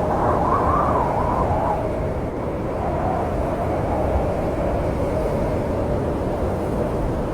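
Snowstorm wind blowing in a steady low rush, with a gust that rises in pitch about a second in and falls back soon after.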